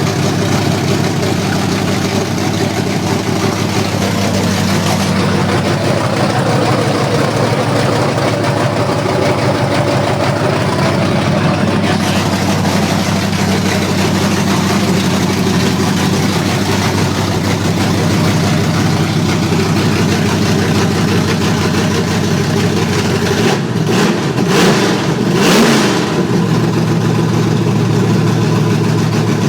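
Pontiac Firebird Trans Am engine idling steadily after its first start in a year, with one blip of the throttle a little over 20 seconds in that raises the revs briefly before it settles back to idle.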